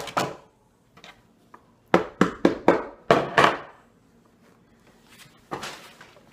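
A manual staple gun shooting a staple into the wooden seat board at the start. About two seconds in comes a quick run of four sharp clacks and knocks as the staple gun and a hammer are handled on a wooden table, then upholstery fabric rustling as it is pulled over the seat.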